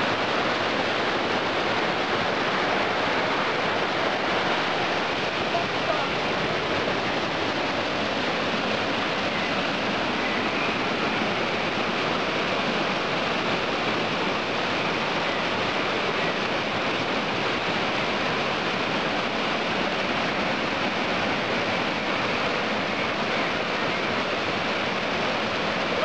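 Fast mountain river rushing and churning over rocks and small cascades, a steady, even rush of white water.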